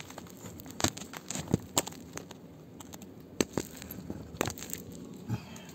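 Irregular clicks, taps and scrapes of a camera being worked along dusty wooden ceiling boards strewn with grit and sand, with a light crackle of the grit between the knocks.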